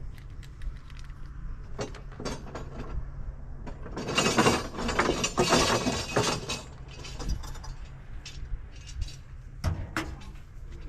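Metal parts being handled: scattered clinks and clicks, with a dense stretch of rattling and clattering in the middle, like small hardware jostled together.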